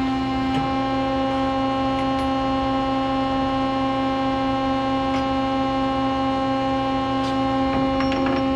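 CNC lathe running with a steady machine hum, several even tones held level. A few light clicks, with a small cluster of them near the end.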